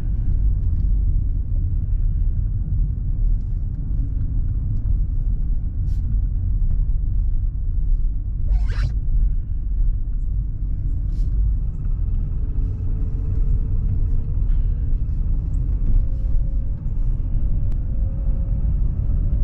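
Steady low rumble of a vehicle's engine and tyres heard from inside the cabin while driving, with one brief sharp sound about nine seconds in.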